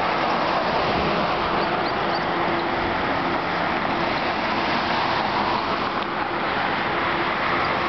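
Steady road-traffic and car noise, with a faint low hum throughout.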